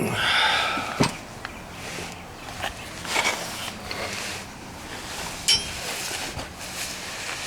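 Handling noises of work under a truck: a scraping rustle at the start, a sharp tap about a second in, softer scrapes, and a short metallic clink about five and a half seconds in.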